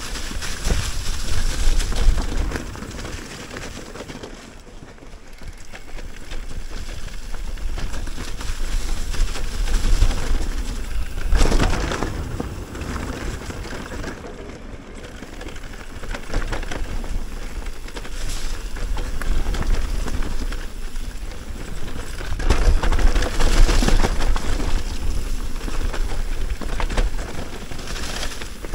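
Mountain bike riding a downhill dirt trail: tyre noise over dirt and leaves with wind rushing across the microphone. The rush swells and fades with speed, loudest about two seconds in, around eleven seconds and again around twenty-three seconds.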